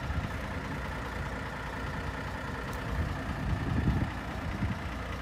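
An engine idling steadily in the open, with louder low rumbles about three to four seconds in.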